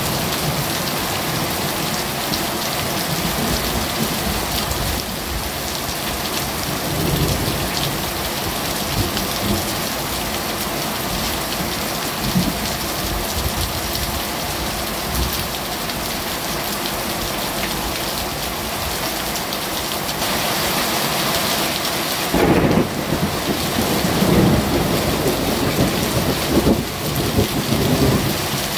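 Heavy rain pouring steadily during a thunderstorm, with low rumbles of thunder that grow louder and more uneven for the last several seconds.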